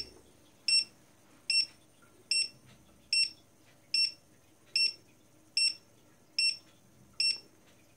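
Dogtrace D-fence 1001 electronic dog-fence receiver collar giving short, high beeps about every 0.8 s, ten in all. This is the collar's audible signal that it is inside the boundary wire's zone.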